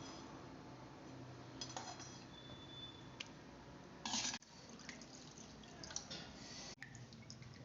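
Kitchen handling sounds: small splashes and drips of water with a few light clinks of a utensil or bowl, the sharpest about four seconds in.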